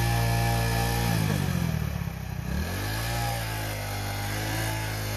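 Small motorcycle engine running, its revs sagging about a second in and climbing back up around three seconds in.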